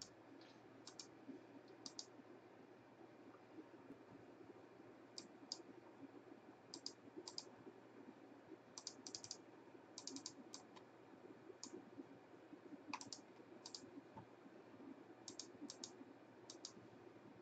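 Faint, scattered clicks of computer keys or mouse buttons, often in quick pairs or small clusters, over a low steady hum of room tone.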